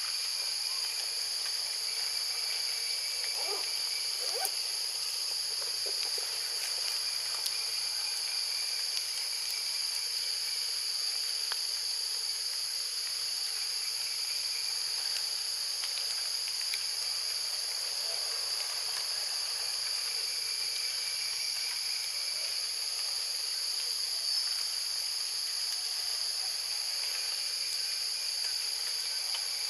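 Steady, high-pitched insect chorus buzzing without a break, with a few faint short sounds around four seconds in.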